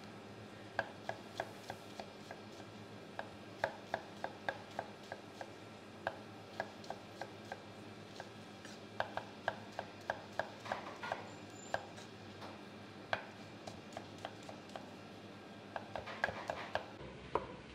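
Chef's knife dicing a red onion on a wooden chopping board: short knocks of the blade through the onion onto the wood, uneven in spacing, a few a second and sometimes in quick runs.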